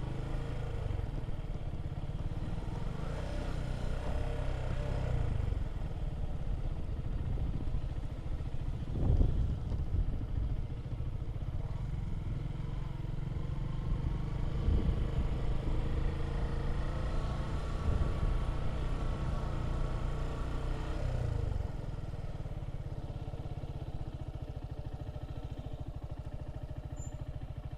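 Motorcycle engine running while riding, a steady low rumble with a few brief thumps; about three-quarters of the way through the rumble drops to a lower, steadier level.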